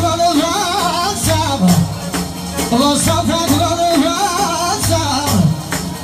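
Loud live party music: a man singing a heavily ornamented, wavering melody through a microphone over an amplified backing with a steady drum beat.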